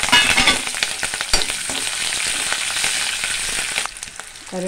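Green chillies and dried red chillies sizzling in hot oil in a steel kadai for a tempering (tadka), stirred with a steel ladle that clicks against the pan. The sizzle is loudest in the first half second and dies down about four seconds in.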